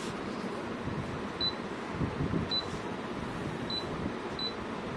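Four short, high-pitched beeps from the Nasan NA-B2+ bubble-removing machine's control panel as its buttons are pressed, spaced about a second apart, over a steady background hum.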